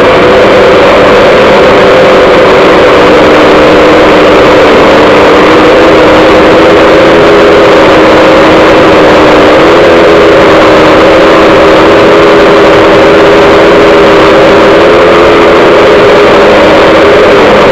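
DJI F550 hexacopter's brushless motors and propellers droning in flight, heard from right beside a spinning rotor: several steady hum tones that shift slightly in pitch a few times as the motor speeds change, over a loud rushing noise.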